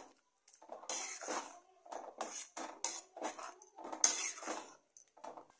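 Steel spoon stirring paneer through thick gravy in a metal kadai, a string of irregular scrapes and clinks against the pan's sides and bottom.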